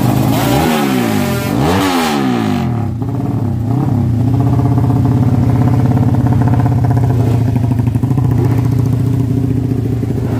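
Drag-race motorcycle engine being revved. The throttle is blipped several times over the first three seconds, with the pitch rising and falling. It then holds at a steady high idle.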